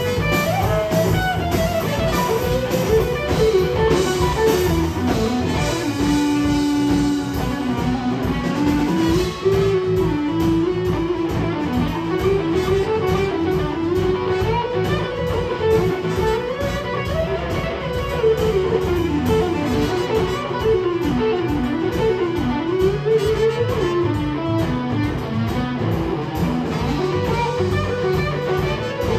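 Live blues-rock band playing, with an electric guitar taking a lead line of bending, sliding notes over bass and drums.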